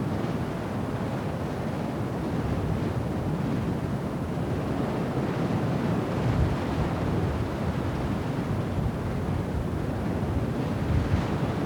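Storm wind on the microphone over rough sea, a steady low noise without any clear tone, with stronger gusts about six and eleven seconds in.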